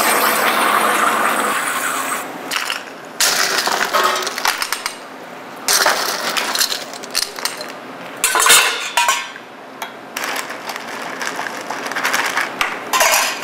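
Irregular clinks and clatters of glassware, over a steady hiss that fades during the first two seconds.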